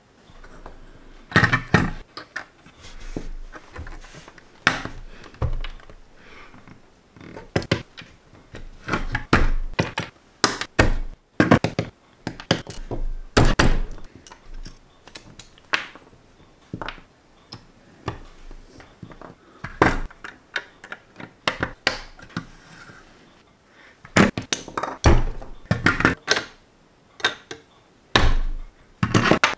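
LEGO pieces being handled with metal tweezers and pressed together on a tabletop: irregular sharp plastic clicks, taps and knocks, some in quick clusters.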